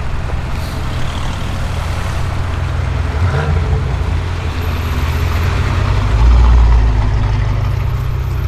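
Audi RS6 Avant C7's twin-turbo V8 running through a Milltek exhaust, a deep exhaust note that grows louder to a peak about six to seven seconds in, then eases off a little.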